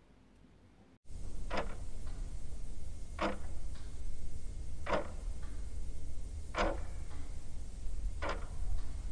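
Near silence, then about a second in, slow clock ticking starts: single sharp ticks roughly every one and a half to two seconds over a low steady hum.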